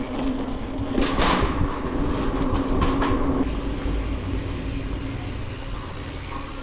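Bicycle being ridden over a rough track: a steady rumble of tyres and drivetrain, with a burst of rattling clicks from about a second in to past the middle.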